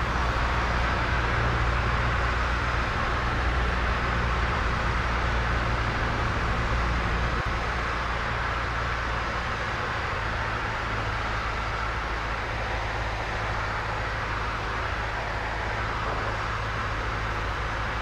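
Single-engine Cessna's piston engine and propeller droning steadily, heard inside the cabin on final approach. The drone eases down a little about halfway through.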